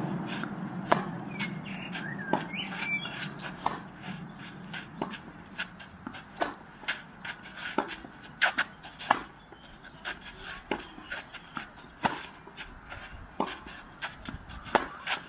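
Tennis rally on a clay court: sharp pops of the ball off racket strings and off the court, coming every second or so. A low rumble fades out over the first few seconds.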